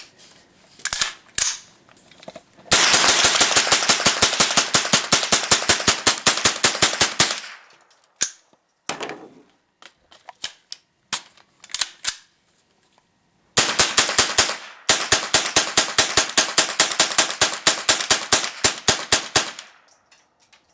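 AR-15 carbine fitted with a CMMG .22 LR conversion kit, fired semi-automatically as fast as the trigger can be pulled: two long rapid strings of about six shots a second, with a few scattered single cracks and clicks in the gap between them. The kit is running dirty and dry yet cycling every round.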